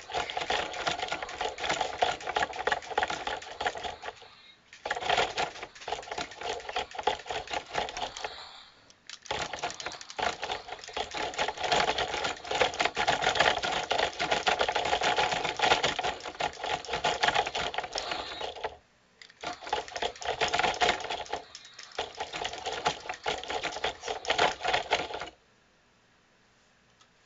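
Toy robot's small electric motors and plastic gears running with a rapid, busy clatter, in long runs that stop briefly several times and cut off near the end.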